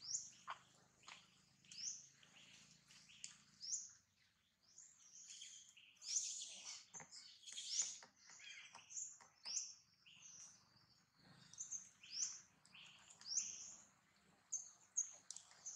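Birds chirping: short, high, sweeping chirps repeated about once a second, thicker and overlapping in the middle stretch.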